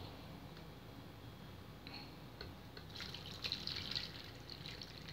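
Faint dripping of liquid, a scatter of small soft ticks that thicken around the middle and later part, over low steady room noise.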